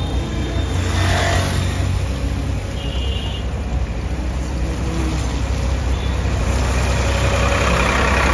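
Road traffic: a steady low rumble of engines and tyres, with a vehicle going past about a second in and the noise swelling again near the end.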